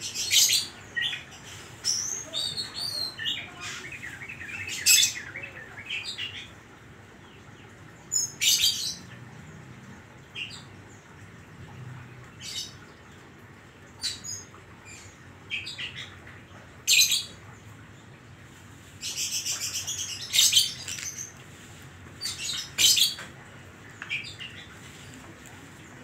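Caged oriental magpie-robin singing: sharp, high whistled and chattering phrases in short bursts every second or two, with a longer rapid buzzy trill about three-quarters of the way through.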